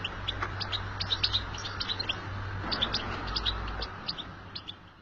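European goldfinch twittering: a quick, continuous run of short high chirps, fading out near the end.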